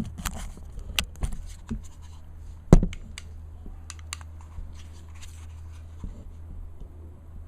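Handling clicks and light scrapes of a framing square being set against a crosscut sled's fence, with one sharp knock a little under three seconds in, over a low steady hum.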